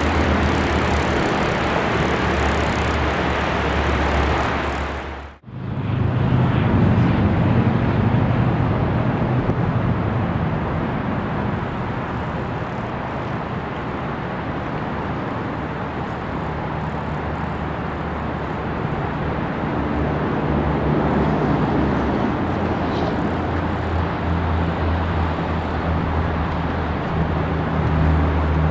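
Narrow-gauge 2-6-2 steam locomotive and its train running, a steady rumble with a low hum underneath. The sound drops out for an instant about five seconds in, then carries on.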